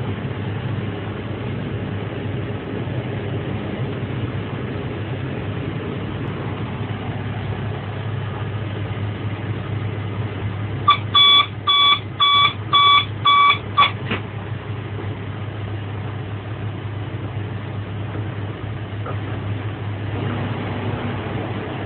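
Steady low hum of an SBB train heard inside the driver's cab. About eleven seconds in, a cab warning beeper sounds a quick run of identical short electronic beeps, about two a second for some three seconds, then stops.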